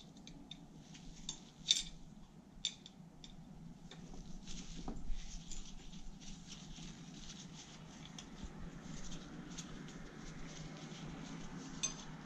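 Hex key loosening small set screws on a go-kart rear axle: faint, scattered metallic clicks and scratches, with sharper clicks about two seconds in and again near the end.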